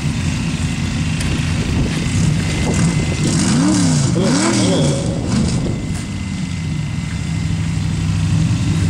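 Off-road competition car's engine idling steadily, blipped up twice in quick succession about three and a half seconds in, each rev rising and falling back to idle.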